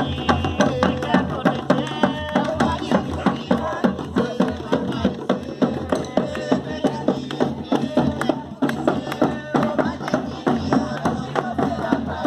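Batuque folk music: drums beating a steady, fast rhythm, about three to four strokes a second, with voices over it.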